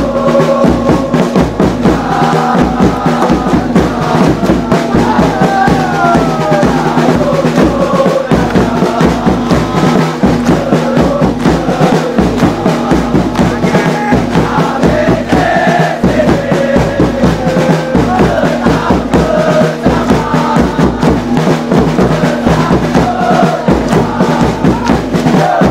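A football supporters' section singing a chant together and clapping in time, over a steady drumbeat.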